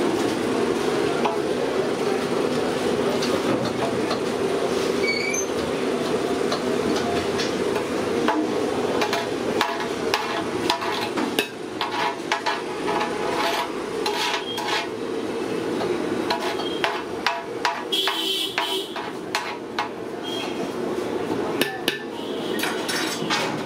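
A perforated steel ladle stirring and spreading rice in a large aluminium biryani pot, with repeated clinks and knocks against the pot, thickest in the second half. A steady low hum runs underneath.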